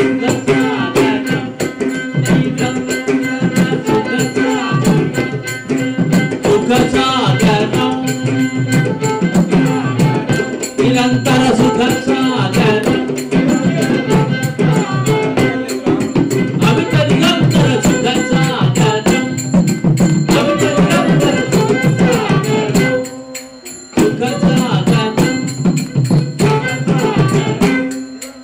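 Carnatic devotional song: a male voice singing over a steady drone, with fast jingling hand percussion keeping a dense rhythm. The music breaks off briefly about 23 seconds in, then resumes.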